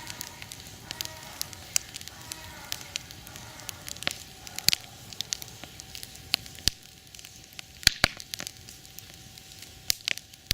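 Campfire crackling: irregular sharp pops and snaps of burning wood over a low hiss, with two loud pops close together about eight seconds in.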